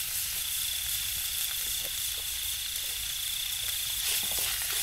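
Stir-fry sizzling in a steel wok over a wood fire, with a few light scrapes and taps of the spatula against the pan.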